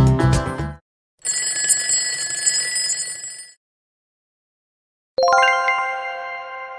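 Upbeat background music cuts off in the first second, and a bell-like ringing sound effect follows for about two seconds, signalling that the puzzle timer has run out. After a pause, a single bright chime is struck and rings on, slowly fading, as the answer is revealed.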